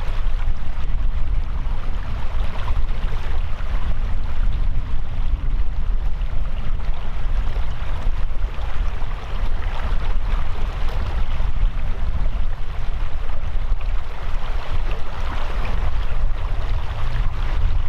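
Steady rushing of a mountain stream, with wind rumbling on the microphone.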